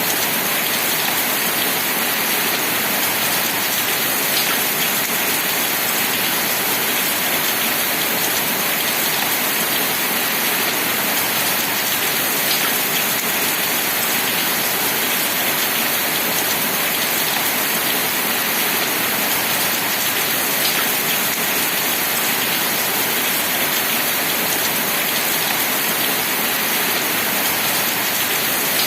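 Steady rain falling, an even continuous hiss with an occasional sharper drop tick.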